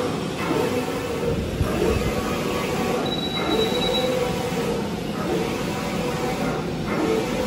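Dilli Neo Earth UV roll-to-roll printer running while it prints: its carriage and motors make a steady mechanical rumble, and a thin high tone sounds for about a second a little after three seconds in.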